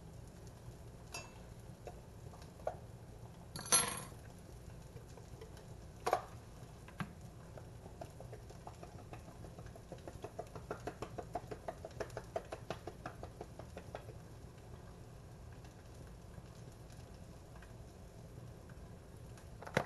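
Old Bay seasoning tin shaken over fish in a pan, giving a run of quick soft taps a little past the middle. There are scattered clinks and knocks of kitchen utensils, the loudest a short clatter about four seconds in.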